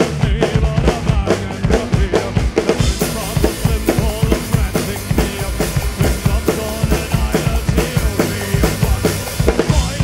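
Folk metal band playing live with the drum kit up front: a fast kick-drum and snare beat under a melody line. Cymbals come crashing in about three seconds in.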